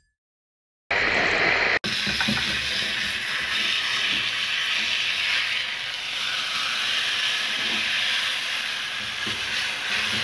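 Food frying in a smoking-hot pan on a gas stove: a steady loud sizzling hiss that starts after about a second of silence.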